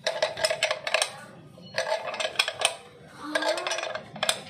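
Steel combination wrench working a nut in short strokes, clinking against the metal in three bursts of rapid clicks with a ringing tone.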